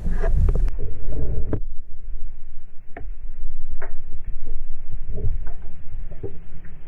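Underwater sound picked up through a diving camera's housing: a loud, low throbbing rumble with scattered faint clicks and taps.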